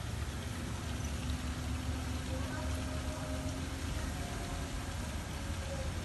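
Steady low rumble with faint distant voices.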